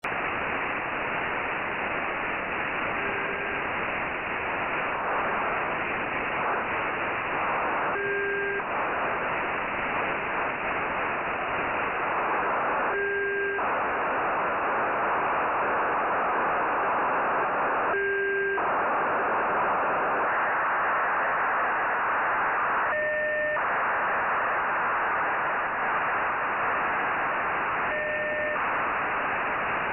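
Software-defined radio's audio from the Nayif-1 (EO-88) amateur satellite's 145.94 MHz telemetry downlink: steady receiver hiss with a short two-tone burst about every five seconds, six in all, each about half a second long. The burst tones step up in pitch about two-thirds of the way through as the receiver is retuned to follow the satellite's Doppler shift.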